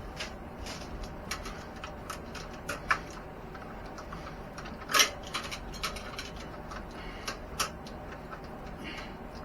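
Irregular small clicks and handling noises from an RC truck and its packaging being handled during unboxing, with a sharper click about five seconds in.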